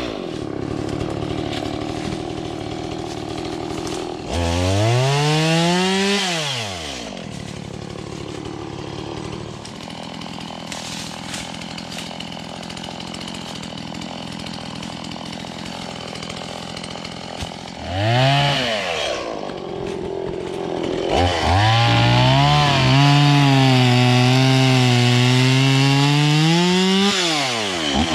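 Two-stroke chainsaw idling between short blips of the throttle, revving up three times. It is then held at high revs for about six seconds near the end, its pitch wavering slightly, before dropping back.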